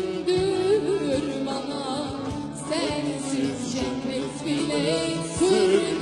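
A woman singing a Turkish song with a wavering, ornamented melody over live band accompaniment with a steady beat.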